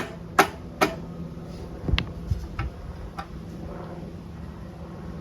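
Rubber mallet tapping on a 1976 Honda CJ360 motorcycle's exhaust pipe to work it loose: three sharp strikes about half a second apart, then after a pause four more lighter, uneven taps about two to three seconds in.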